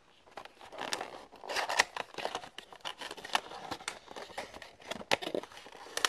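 Cardboard box of a diecast model airliner being handled and opened: irregular rustling and scraping of the packaging with many sharp clicks.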